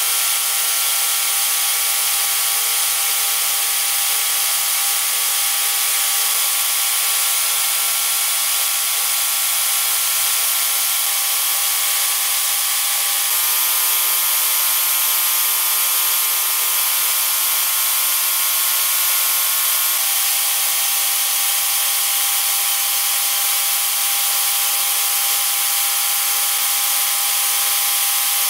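Sandblasting gun blasting rust off charcoal-iron parts inside a sandblasting cabinet: a loud, steady hiss of compressed air and abrasive, with a steady hum underneath.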